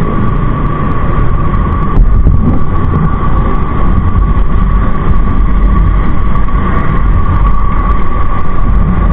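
Motorcycle riding in traffic, heard from a camera mounted on the rider: a loud, steady low rumble of wind on the microphone and engine, with a steady high whine over it.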